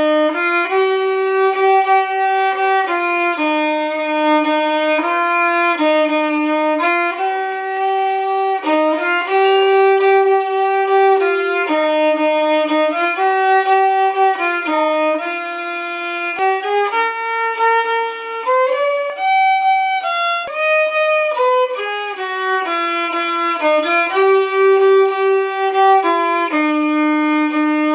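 Background music: a single instrument playing a melody one note at a time, each note held about a second.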